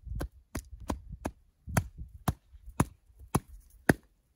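Gloved hand tapping on an avalanche shovel blade laid flat on top of an isolated snow column, loading it in a snowpack stability test. The taps come about three a second at first, then louder and about two a second from a little under two seconds in.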